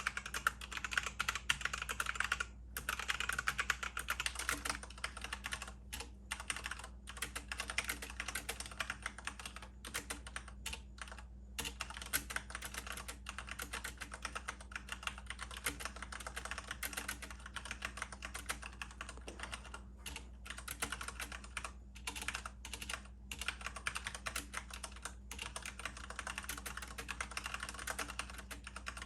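Fast, continuous typing on a computer keyboard, a quick run of keystroke clicks with short pauses here and there.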